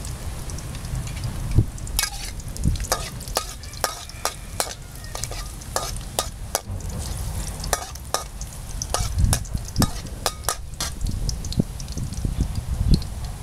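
Metal spatula scraping and clinking against a metal wok as chopped garlic is stirred in sizzling oil. Sharp clicks come about twice a second from about two seconds in, and they stop shortly before the end.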